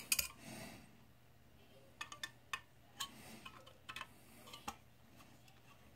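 Faint, scattered light clicks and ticks of a screwdriver turning a small screw out of the metal housing cover of a projector lamp module. Most of the clicks fall between about two and five seconds in.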